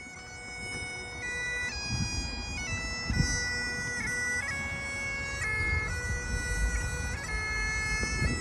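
Bagpipes playing a slow melody of held notes over a steady drone.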